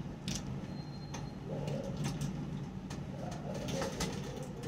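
Scattered clicks and light rustles of a fishing rod being handled and unwrapped, over a low pigeon cooing.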